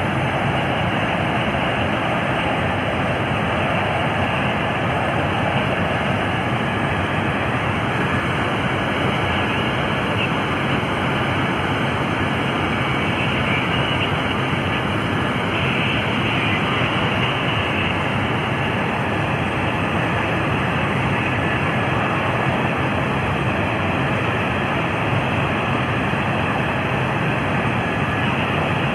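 Loud, steady engine noise: an even rushing sound that holds without breaks or changes.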